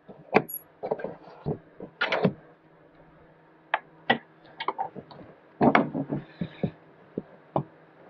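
Irregular short plastic clicks and knocks as a small round LED daytime running light is pushed and worked into its hole in a van's plastic front bumper.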